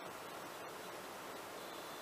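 Steady, even noise inside a car's cabin on a rough dirt road, with no distinct knocks or voices. A faint thin high whine comes in about one and a half seconds in.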